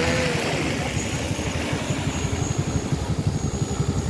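Large 20-litre agricultural spraying drone's rotors droning as it climbs and flies off, a steady low buzz with a fast throb.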